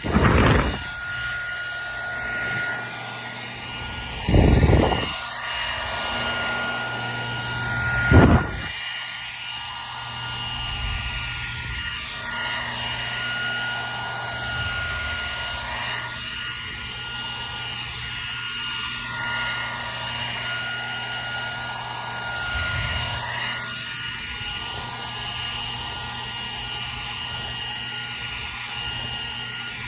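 Hair dryer running steadily: rushing air over a constant motor whine with a steady high tone. Three short loud low bumps break in, at the very start, about four and a half seconds in, and about eight seconds in.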